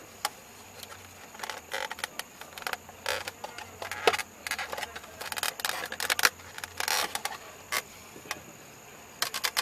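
Plastic steering column shroud being worked loose by hand: irregular clicks, taps and scrapes of plastic trim and its retaining clips.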